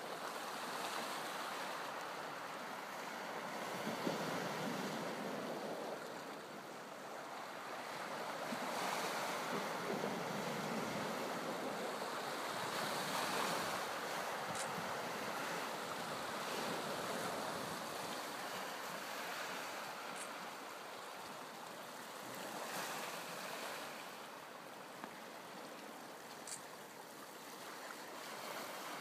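Lake Superior waves washing against the shore, the rush swelling and ebbing every few seconds, with a few faint short high chirps.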